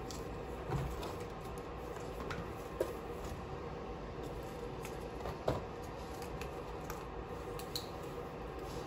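Quiet desk handling: spiral-notebook pages being turned and a few light taps and clicks as things on the desk are moved, over a steady low room noise.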